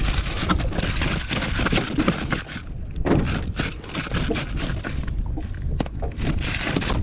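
Wind rumbling on the microphone aboard a small fishing boat, with a run of scattered knocks and scrapes from gear being handled.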